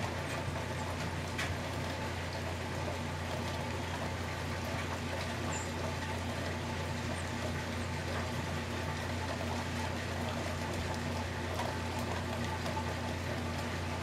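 Steady rain falling in woodland, an even hiss, with a low steady hum underneath and a few faint ticks.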